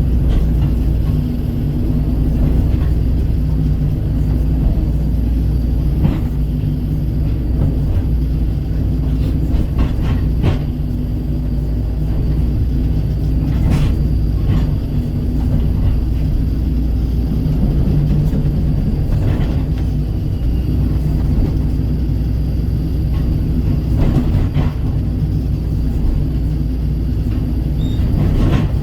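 Kobelco SK135 excavator's diesel engine running steadily under work, with sharp knocks and clanks every few seconds as it handles dirt.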